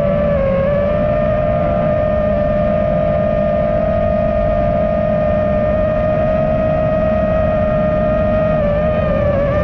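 FPV quadcopter's brushless motors and propellers whining at a steady pitch, with a brief dip in pitch about half a second in and again near the end as the throttle eases. Under it runs a low rushing noise.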